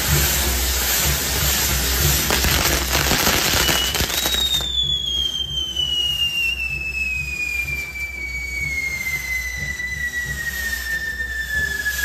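A fireworks castle burning: fire-spitting jets on a spinning wheel hiss and crackle for about four seconds. Then a single firework whistle starts with a brief rise and glides slowly and steadily down in pitch while the hiss dies away.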